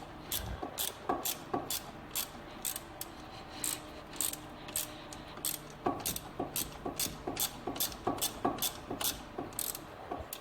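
Ratchet wrench clicking steadily, about three clicks a second, as a 13 mm alternator mounting bolt is backed out.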